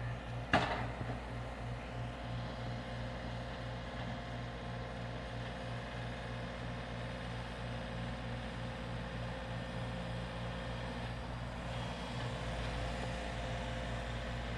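John Deere 3720 compact tractor's diesel engine running steadily as it plows snow, with one sharp knock about half a second in.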